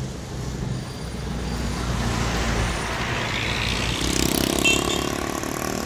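Riding a Honda Click 125i scooter in city traffic: the scooter's single-cylinder engine runs under the rider with road and traffic noise. About four seconds in, a louder hissing swell rises and passes.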